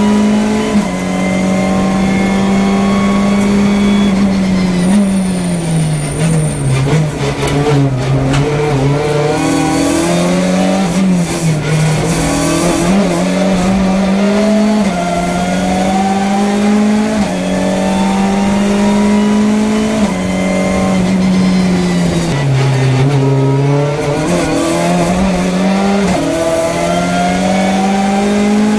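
Hyundai i30 N TCR race car's turbocharged 2.0-litre four-cylinder engine at racing speed, heard from inside the cockpit. The engine note falls as the car brakes and shifts down for a slow corner, then climbs again through the gears, the pitch dropping in a quick step at each upshift.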